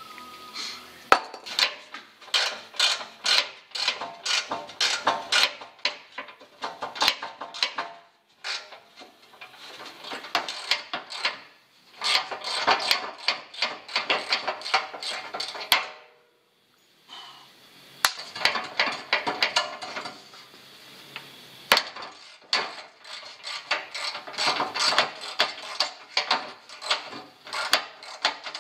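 Rust being scraped off a steel vehicle bumper by hand, in quick back-and-forth strokes of about three a second. The strokes come in runs of several seconds with short pauses, and a few sharper knocks against the metal stand out.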